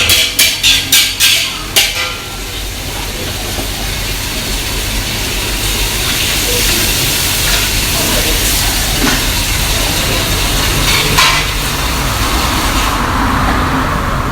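A metal spatula strikes and scrapes a wok about six times in quick succession, roughly three strokes a second. A loud sizzling hiss of food frying hard in the wok then builds up and holds, with a single clank near the end.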